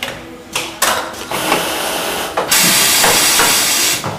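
Automated assembly and leak-test machine working: a few sharp mechanical knocks, then a hiss of compressed air that builds about a second and a half in, turns loud for about a second and a half, and cuts off shortly before the end.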